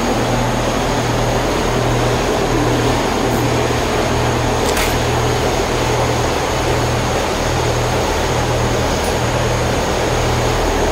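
Steady machine noise, a fan-like whir over a low electrical hum, with a faint click about halfway through.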